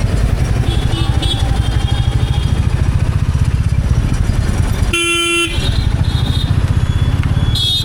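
Royal Enfield Bullet 350's single-cylinder engine thumping steadily while riding. A vehicle horn sounds one short honk about five seconds in, and a brief higher-pitched horn sounds near the end.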